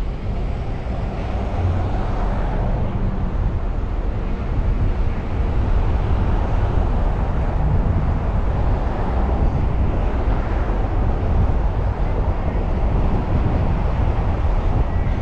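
Steady road noise of a car driving along a city street: a continuous low rumble of tyres and engines with no distinct single events.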